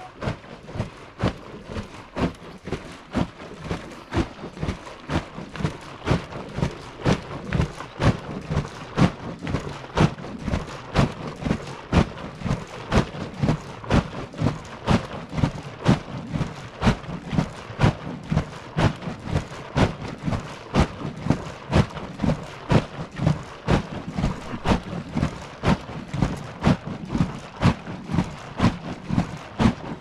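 Milk sloshing inside a hanging leather churn bag as it is rocked back and forth to churn out butter, a regular swash about twice a second.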